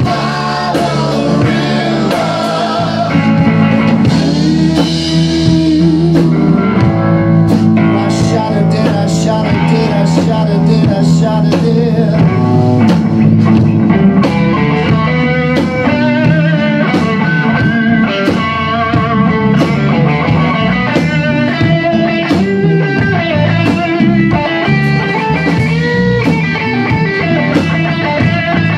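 Rock band playing live: electric guitar, electric bass and drum kit.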